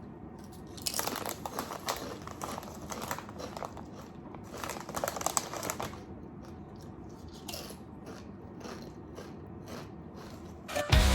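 Close crinkling and rustling handling noise, densest in the first half, then quieter; loud music with drums cuts in at the very end.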